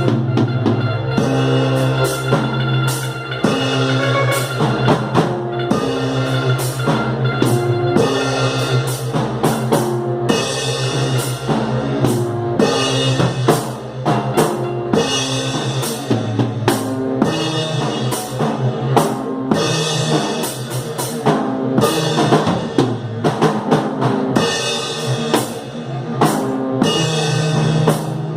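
Instrumental psychedelic rock jam: a drum kit with bass drum and snare hits keeps a busy beat under sustained guitar and synthesizer notes.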